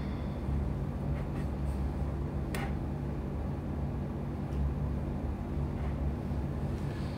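A steady low mechanical hum, with one sharp click about two and a half seconds in.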